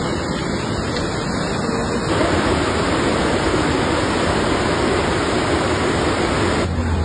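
Muddy river in flood after a landslide, rushing steadily as an even noise with no distinct events. It gets louder and fuller about two seconds in.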